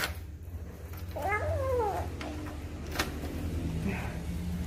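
A door latch clicks as the front door opens. About a second later comes a single high cry that rises and falls, lasting under a second. A second sharp click follows a second after that.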